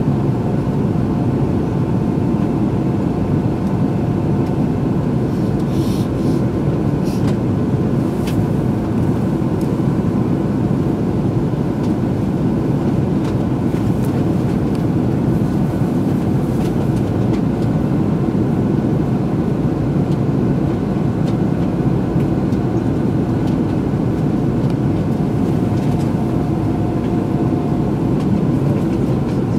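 Steady hum and rush inside the cabin of a standing E2-series Nagano Shinkansen train, its ventilation and onboard equipment running while it waits at the platform, with a few faint clicks about six to eight seconds in.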